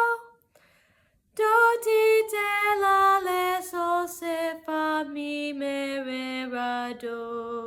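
A girl's unaccompanied voice singing a descending chromatic scale on solfège syllables: after a pause of about a second, a long run of short, even notes stepping down in pitch.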